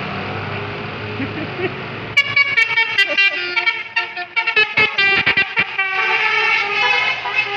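A tour bus's telolet basuri horn. Over the bus's running engine, about two seconds in it plays a fast melody of short, changing multi-tone notes, then moves into longer held chords near the end.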